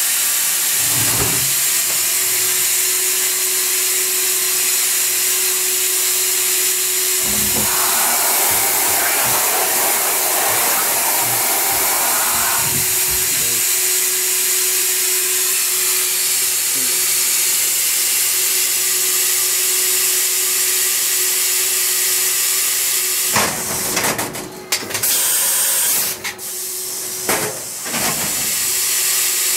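Mori Seiki SH-503 horizontal machining center running with its coolant spraying: a loud, steady hiss with a steady hum underneath. A rougher noise runs for several seconds about a third of the way in. Near the end the hiss cuts out and comes back several times.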